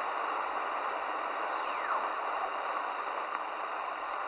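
Static hiss from a Midland Alan 8001 CB radio's speaker between transmissions on the 11-metre freeband, with a thin falling whistle about a second and a half in.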